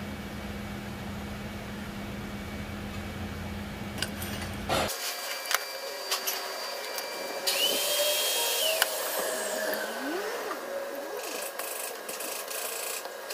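Workshop tool noise: a steady hum at first, then clicks and clatter of hand tools, with a small power tool whirring and hissing briefly near the middle.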